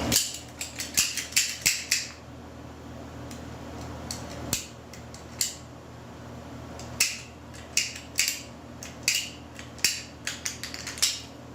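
Irregular hard-plastic clicks and knocks of 3/4-inch PVC pipe and fittings being handled and fitted together, coming in clusters with a quieter gap in the middle.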